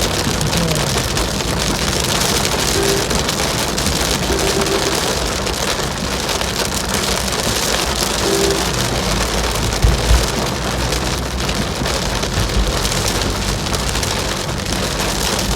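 Steady heavy rain pattering on a surface, with a brief low thump about ten seconds in.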